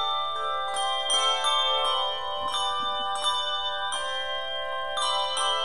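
A handbell choir playing: several tuned handbells are struck together in chords, each ringing on and overlapping as the next ones sound.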